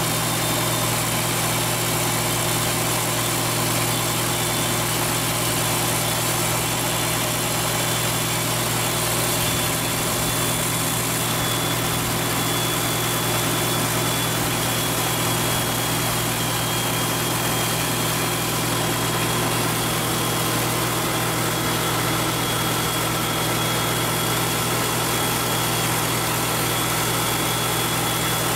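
Ford TW-25 tractor's turbocharged six-cylinder diesel idling steadily with the exhaust removed, with a thin, steady high whistle from the turbo over the engine note. The owner says the turbo is due for reconditioning.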